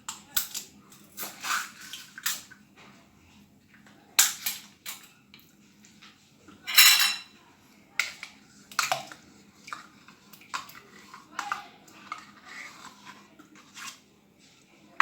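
Kitchen handling sounds as fruit yogurt is added to a blender jug: irregular clicks and knocks of containers and utensils, with one louder scraping rush about halfway through.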